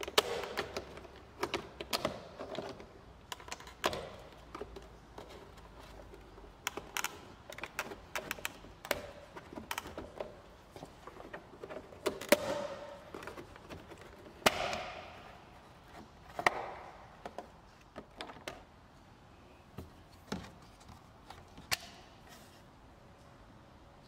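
A plastic trim-removal tool prying the plastic side mirror cover off a 2016 Mercedes-Benz C300 (W205) mirror: a string of irregular sharp clicks and snaps as the cover's clips let go, with a few short scraping rasps in between.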